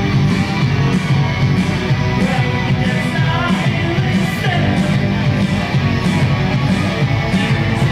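A rock band playing live, electric guitar to the fore over a continuous dense backing.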